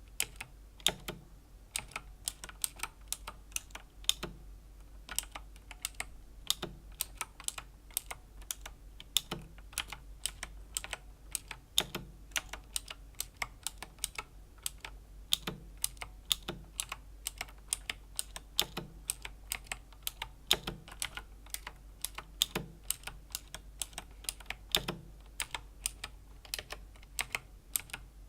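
Razer Green clicky mechanical key switches on a Razer BlackWidow Chroma V2 keyboard, typed at an unhurried pace: a steady run of sharp clicks, several a second, with a deeper thud every two seconds or so.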